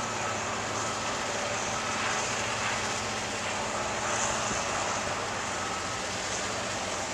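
Steady low engine drone over a constant rushing noise.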